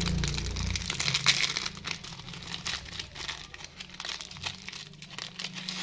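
Plastic candy wrapper crinkling and crackling as it is torn open by hand, a dense run of quick crackles that is loudest in the first two seconds and thins out toward the end.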